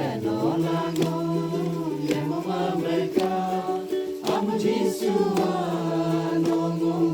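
A gospel song sung with instrumental accompaniment, the notes held and sliding, with a sharp beat about once a second.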